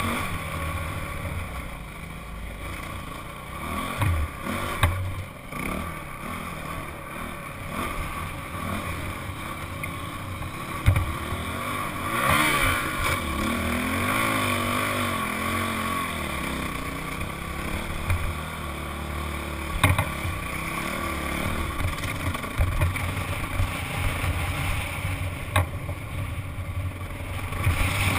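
Single-cylinder four-stroke Honda CRF dirt bike engine heard from on the bike while riding over sand, the throttle rising and falling, with a revving climb about halfway through. A few sharp knocks from the bike jolting over the rough trail.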